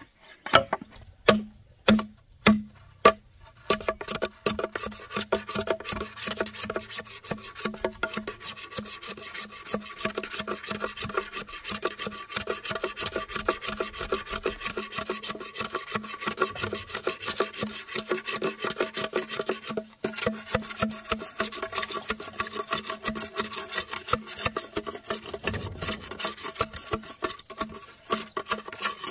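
A few sharp knocks, then fast, continuous rasping strokes from about four seconds in.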